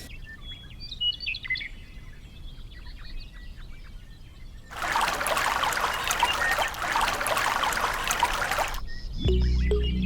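Small birds chirping with quick falling calls, then a steady rushing, pouring noise for about four seconds in the middle. Music comes in near the end.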